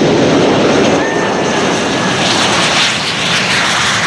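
Red Arrows BAE Hawk T1 jets, each with a single Rolls-Royce Turbomeca Adour turbofan, running at takeoff power as a section rolls down the runway in formation. A loud, steady jet noise that grows brighter and more hissing from about two seconds in, with a faint thin whine near the start.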